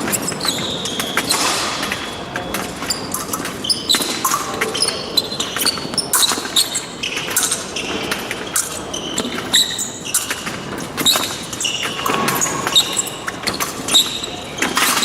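Fencers' shoes squeaking and feet stamping on the piste during an épée bout, with frequent sharp clicks and knocks.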